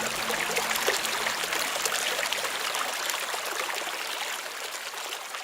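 Running water, a stream trickling and splashing steadily, slowly fading out near the end.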